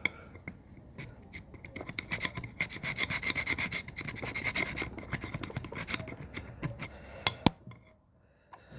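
A metal tool scraping hard carbon build-up inside an RB25DET engine, in quick repeated strokes with a metallic ring. Two sharp clicks come near the end.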